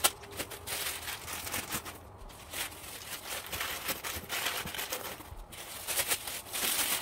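Paper being crumpled and stuffed into the empty spaces around a box packed inside a larger cardboard shipping box: a continuous crackling and crinkling, louder near the end.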